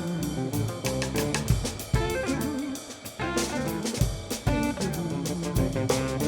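Live instrumental improvisation: guitar playing melodic lines over bass guitar and a drum kit, with frequent cymbal strokes and kick drum hits.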